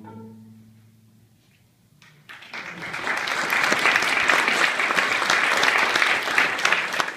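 The last low note of a string quartet of two violins and two cellos fades away, then an audience breaks into applause about two seconds in, dense and steady to the end.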